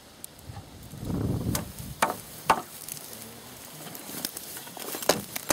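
Dry brush and old fence wood rustling and snapping as they are pulled out by hand: a scraping rustle about a second in, then several sharp cracks.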